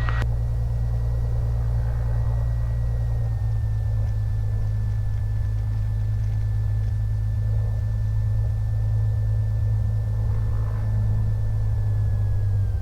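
A Cessna 182M's six-cylinder Continental O-470 engine and propeller running steadily at low taxi power, heard from inside the cabin as a constant low drone. A faint high whine sits above it and slowly drifts lower.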